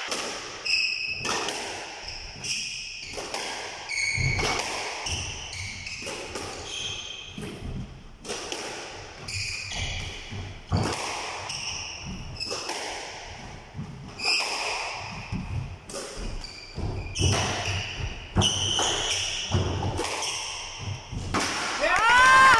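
Squash rally: repeated sharp thuds of the ball off rackets and the court walls, about one a second, mixed with the squeak of court shoes on the floor.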